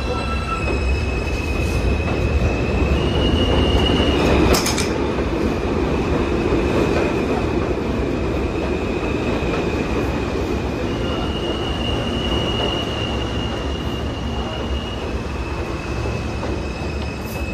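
R160A subway train pulling out of an elevated station and passing close by, its wheels rumbling along the rails. A high steady wheel squeal rides over the rumble and shifts pitch a few times. A single sharp clack comes about four and a half seconds in.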